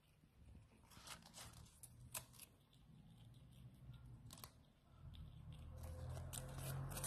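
Faint crisp clicks and tearing of a ground squirrel chewing and pulling at leafy greens, scattered and uneven, with a low rumble building from about five seconds in.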